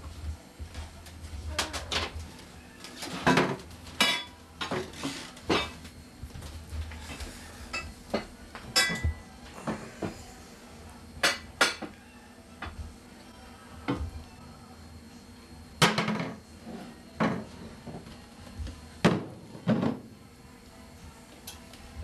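Pots and pans clattering and cabinet doors knocking as a baby rummages in a low kitchen cabinet: irregular knocks and clinks, a few of them ringing briefly.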